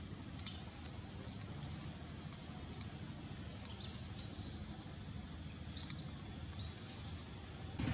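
Newborn macaque crying: about five thin, high-pitched squeals, one every second or two, each arching up and falling away.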